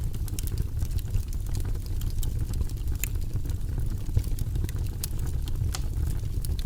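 Fire crackling: frequent sharp pops and snaps at irregular intervals over a steady low rumble.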